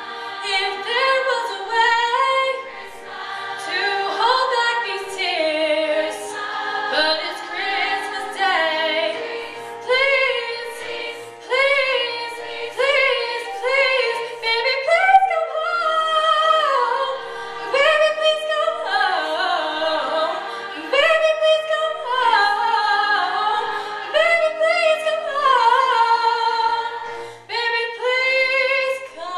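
Girls' women's choir singing, with one singer leading on a handheld microphone over held notes from the rest of the choir.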